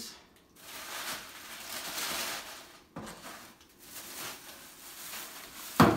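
Thin plastic shopping bag rustling and crinkling as it is rummaged through, with a sharp knock near the end.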